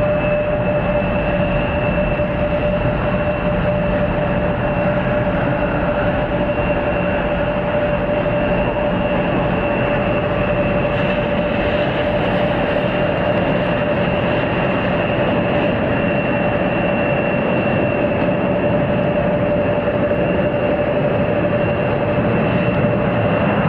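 Jet engines of a CRJ regional jet running steadily at low power: a constant rushing noise with two held whining tones, one middle and one high.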